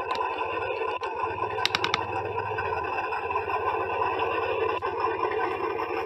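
A steady, engine-like drone with a low buzzing hum beneath it, and four quick clicks about two seconds in.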